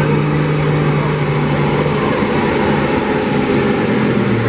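Big-rig semi tractor's diesel engine running loud at full load while pulling a weight-transfer sled. The engine note is steady, then drops slightly in pitch about halfway through and again near the end as the sled pulls it down.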